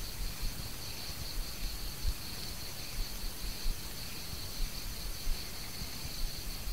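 Insects chirring steadily at a high pitch over the hiss of an old recording, with faint irregular low bumps.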